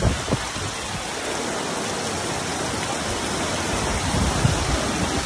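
Heavy rain falling steadily: a dense, even hiss of rain on the lawn and ground, with a few low thumps near the start and about four seconds in.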